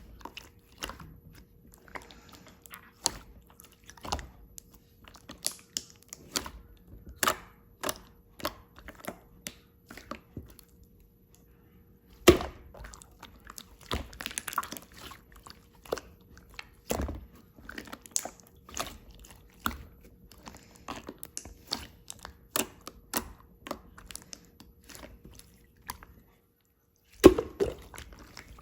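Close-up eating sounds: irregular crunching bites and chewing, with a louder crunch near the end.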